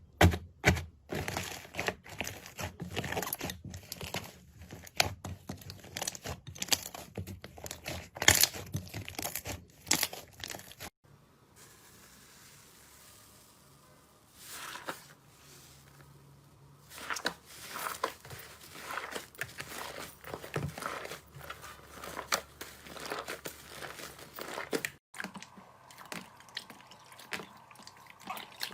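Slime being squeezed and worked by hand, making dense, irregular crackling and popping. The clips change about 11 seconds in, when it goes quieter for a few seconds, and again near 25 seconds.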